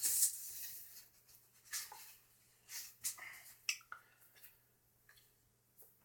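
Packaging being handled around a laptop as it is unwrapped: a few short rustles and scrapes, fading out near the end.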